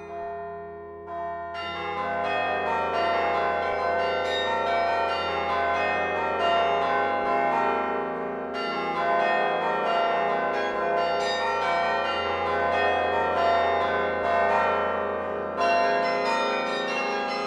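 The Laura Spelman Rockefeller Memorial Carillon's cast bronze bells being played from the baton clavier: the last bells ring out and fade, then playing resumes about a second and a half in with many bells struck in quick succession. A fresh loud group of bells sounds near the end.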